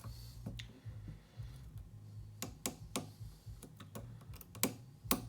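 Small, sharp metallic clicks at irregular intervals, a few louder ones in the second half: a deep hook pick lifting and releasing the pin stacks of a lock built from an ABUS 83/45 padlock, tensioned with a Z-bar wrench. A low steady hum runs underneath.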